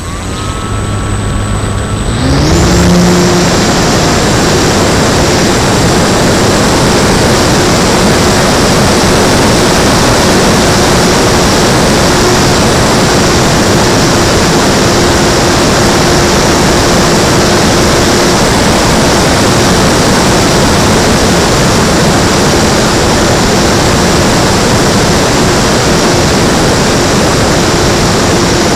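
E-Flite Timber RC plane's electric motor and propeller, heard from a camera on the plane. The motor spools up with a rising whine about two seconds in for takeoff, then runs steadily at high throttle with a steady hum over loud rushing airflow.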